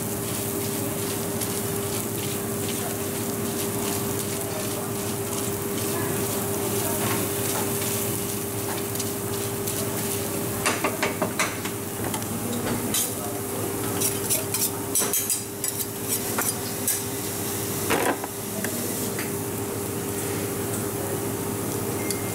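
Dosa sizzling on a hot flat steel griddle while metal utensils scrape and tap against the plate, with clusters of sharp clicks about ten seconds in and again from about fourteen to eighteen seconds. A steady hum runs underneath.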